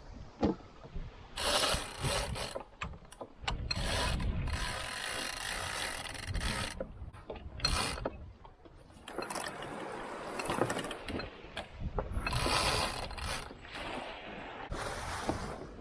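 Ratcheting and clicking of a sailboat's deck gear, a sheet winch and line blocks, as lines are worked, in uneven bursts with wind and sea rush between them.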